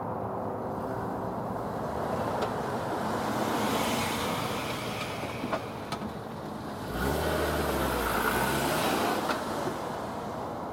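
A motor vehicle driving past close by: tyre and engine noise that builds, dips briefly about six seconds in, then swells again with a deep engine rumble before fading near the end.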